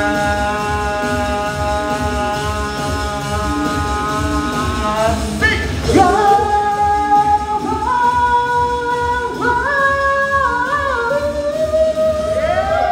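Pop song with singing over a backing track with a steady beat. A long held note for about five seconds, then a melody moving in steps, ending on a note that slides down.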